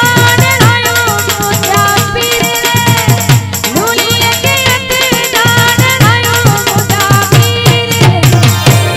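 Kutchi devotional folk song performed live: a woman singing through a microphone over a fast, steady percussion rhythm with low drum beats.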